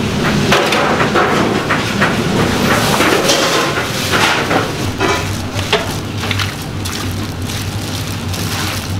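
Commercial kitchen handling noise: metal trays and utensils clattering and knocking in quick, irregular clicks over a steady hiss.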